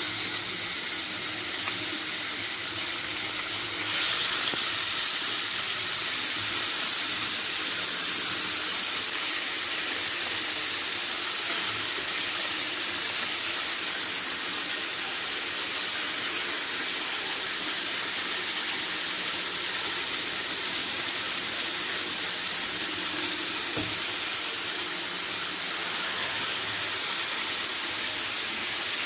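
A steady, even hiss, unchanging throughout.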